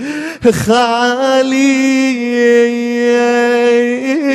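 A man chanting an Arabic Shia funeral lament (rithā') for Imam Ali, drawing the word "khālī" ("empty") out into one long held note after a brief break about half a second in.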